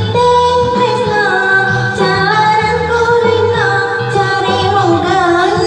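A woman singing through a karaoke microphone over a backing track with a steady, repeating bass line.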